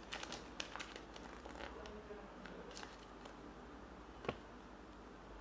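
Thin paper toy leaflet from a Kinder Joy egg crinkling and crackling in the fingers as it is unfolded, with one sharp click a little after four seconds in.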